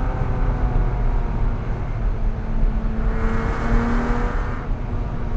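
Porsche Cayman S flat-six engine heard from inside the cabin over steady road rumble, pulling harder with a rising pitch about three seconds in, then easing off near the end.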